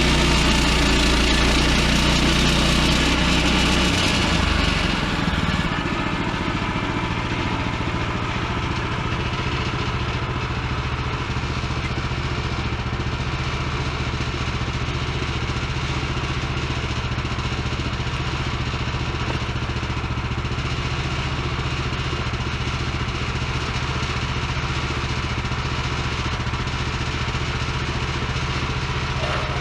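Band sawmill engine running steadily, with a hissing cut sound over it for about the first five seconds. Then the cutting noise drops away and the engine runs on at a slightly lower level.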